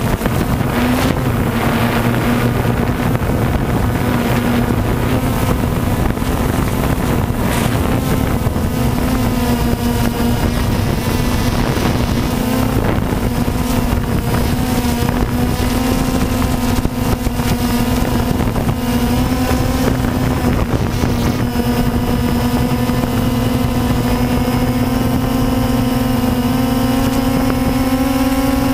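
Multirotor drone's electric motors and propellers giving a steady buzzing hum as it lifts off and climbs, heard from its on-board camera, with some wind rush on the microphone.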